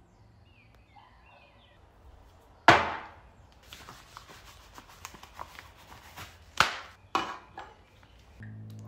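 Sharp knocks of a metal can being handled and set down on a wooden tabletop: one about three seconds in and two more close together near the end, with faint clicks and rustling between them. A steady motor hum starts just before the end.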